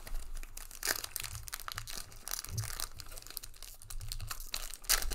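Crinkling and crackling of a foil trading-card pack wrapper as it is handled and torn open, with louder crackles about a second in and near the end.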